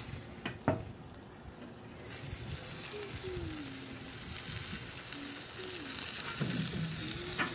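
Smoked turkey sizzling and hissing in a charcoal smoker grill, with a single sharp knock near the start.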